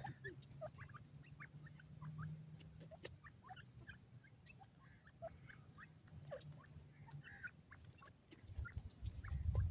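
Grey francolins giving soft, scattered short chirps and clucks while foraging, over a faint steady low hum. A low rumble builds near the end.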